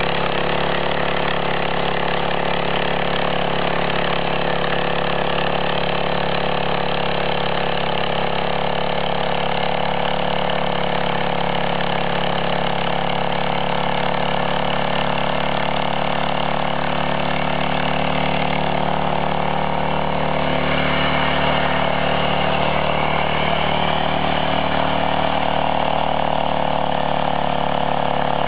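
Small engine of a walk-behind power tiller running steadily under load as its screw ridger is pulled through the soil to earth up potato rows.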